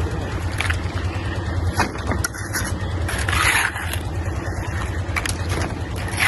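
A motor or engine running steadily with a low hum, with a few sharp clicks and a scrape about three seconds in.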